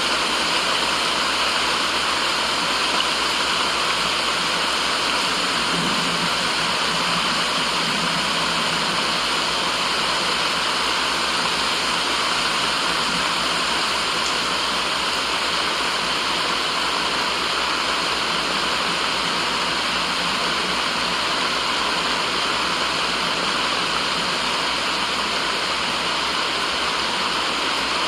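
Steady white-noise sound: an even rushing hiss that does not change, with most of its energy in the middle and upper range, like a waterfall.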